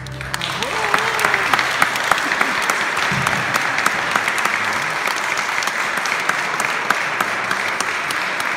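Audience applauding: many hands clapping steadily after a song ends.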